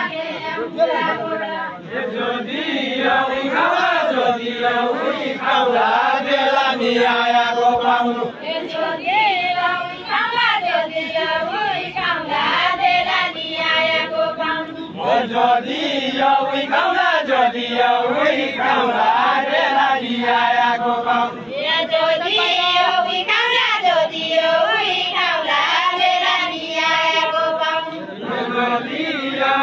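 A group of men singing a Deuda folk song together, a repetitive chant-like melody carried by many voices.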